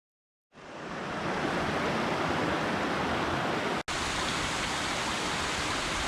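Steady rush of water from a mountain valley stream, fading in about half a second in, with a split-second break near the middle.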